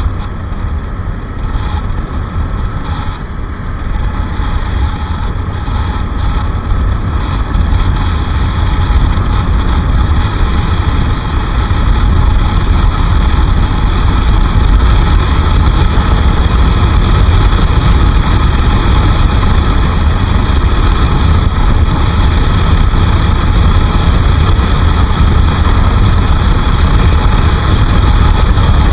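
Bajaj Pulsar RS 200 motorcycle being ridden: its engine runs under heavy wind rumble on the microphone. It grows louder over the first dozen seconds, then holds steady.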